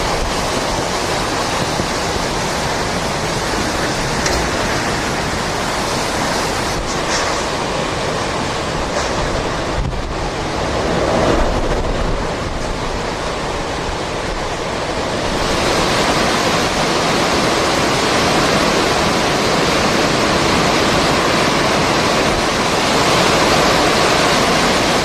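Hurricane wind blowing hard as the eye passes and the wind returns, a dense steady rush of noise that strengthens about fifteen seconds in.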